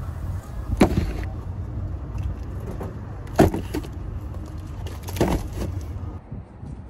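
Groceries being loaded into the back of a car: three sharp knocks as items are set down, over a steady low rumble.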